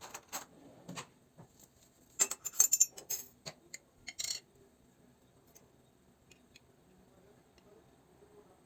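Kitchenware clinking and tapping: a few light clicks, then a quick run of bright clinks about two to three seconds in and one more short clatter about four seconds in, after which only faint room sound remains.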